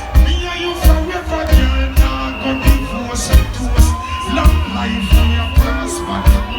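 Live reggae band playing, with a heavy bass line and a steady beat pulsing about every 0.6 seconds under long held notes.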